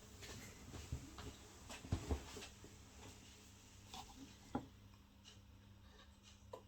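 Quiet room tone with a few faint scattered knocks and clicks, the clearest around two seconds in and again about four and a half seconds in.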